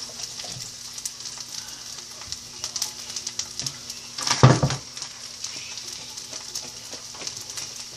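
Asparagus sizzling in a hot frying pan: a steady hiss with scattered crackles, and one brief louder noise about halfway through.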